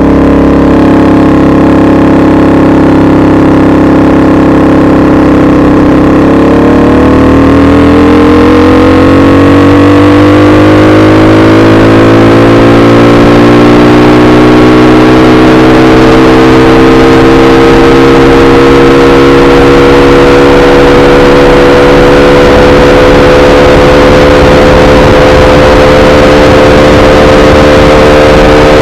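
Honda 50 cc single-cylinder four-stroke engine on a home-built motorized bicycle, running under way. Its revs climb steadily from about six seconds in as the bike picks up speed, then hold steady at a high, even pitch, with a steady rush of wind and road noise underneath.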